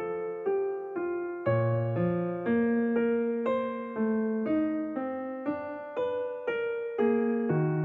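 Background piano music, single notes and chords struck at an even pace of about two a second.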